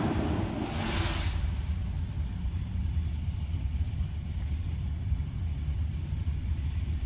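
Noise from an apartment complex's automated pneumatic waste collection system: a loud rushing sound that ends with a brief hiss about a second in, followed by a steady low rumble.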